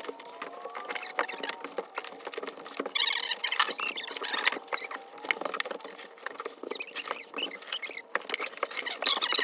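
Shovels scraping and loose dirt pattering down as dirt is shoveled into a garden cart, in irregular bursts, busiest about three seconds in and again near the end.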